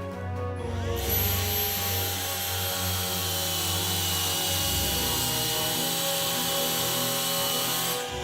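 Handheld mattress vacuum cleaner switched on about a second in: its motor runs steadily with a high whine and a hiss of airflow, then cuts off suddenly near the end. Background music plays throughout.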